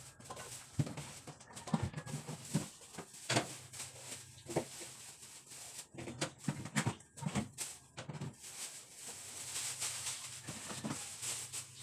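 Groceries being packed into a refrigerator: irregular knocks and clunks of items set down on the shelves, with rustling of plastic bags, the rustling strongest in the last few seconds.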